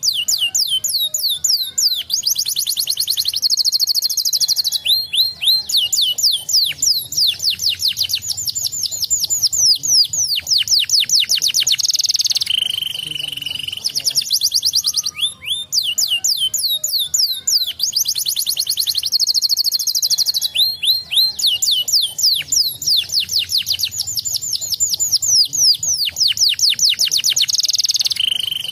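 Domestic canary singing: fast trills of quickly repeated rising and falling notes, broken by a held steady note about halfway through and again near the end.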